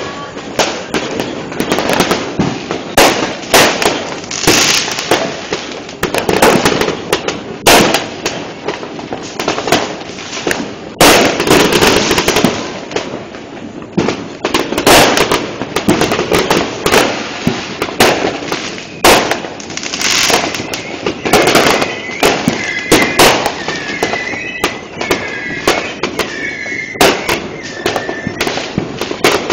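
Many aerial fireworks and firecrackers going off in dense, irregular succession, sharp bangs and crackle overlapping throughout. In the later part a string of short high whistles repeats several times among the bangs.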